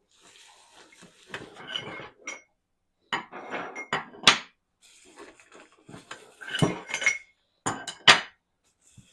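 Plant stand parts clinking and clattering as they are unpacked and handled, with several sharp knocks. The loudest come a little past four seconds and again around eight seconds.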